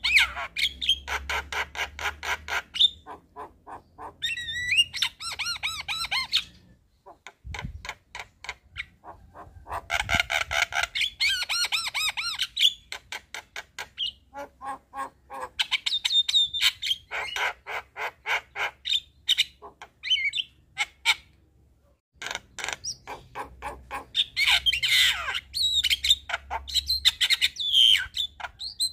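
Javan myna singing in phrases of fast, harsh repeated notes, several a second, mixed with squawks and whistled notes. The song breaks off briefly twice.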